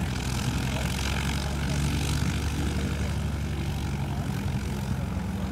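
Light aircraft piston engine and propeller running steadily, a low even hum, typical of the tow plane readying to launch a glider.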